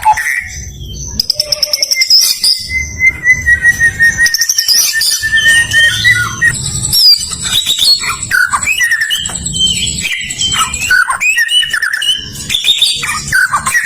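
White-rumped shama singing: a long held whistle that slowly falls in pitch, followed by rapid, varied whistled phrases and trills.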